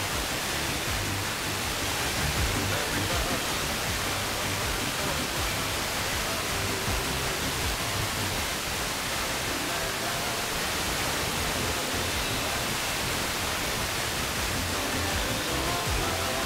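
FM radio receiver playing a weak, distant broadcast that arrives by sporadic-E propagation: faint music fades in and out under steady heavy hiss, clearer near the end.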